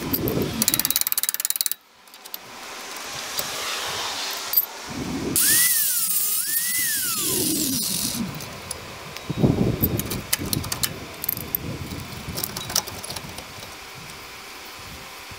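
Reciprocating saw (Sawzall) cutting through rusted-on bolts on the truck's shock absorber mounts. It runs in stops and starts: a fast stroking cut that stops suddenly just under two seconds in, then a stretch where the motor's whine rises and falls in pitch.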